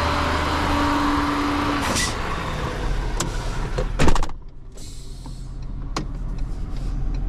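Vehicle engine idling steadily, with one short loud clunk about four seconds in, after which the sound drops to a quieter low hum.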